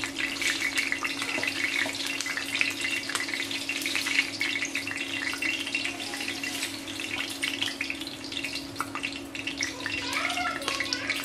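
Batter-coated fish pieces sizzling and crackling in hot oil on a flat iron dosa griddle, a continuous dense spatter of tiny pops. A steady low hum runs under it.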